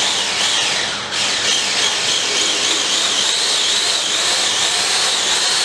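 Handheld electric stick blender running steadily in a tub of milk and flavour powder, mixing softy ice cream mix: a continuous motor whir with a wavering high whine that dips briefly about a second in.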